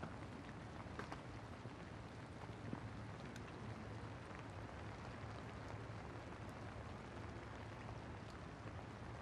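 Light rain falling on wet pavement: a faint, even hiss with a few soft ticks of drops, over a steady low hum.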